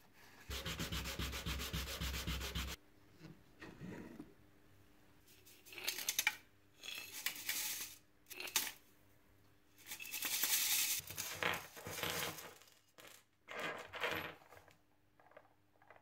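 Brisk, rhythmic rubbing on a small wooden board for about two seconds. Then several bursts of gritty, hissing rattle as tumbled nails and small metal parts are shaken in a metal mesh sifter, fine grit sifting out.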